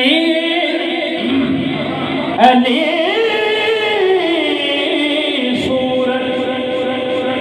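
A man's voice chanting in long, drawn-out melodic notes through a loudspeaker system. There are three long held notes, the middle one rising and then falling, each starting with a sharp loud attack.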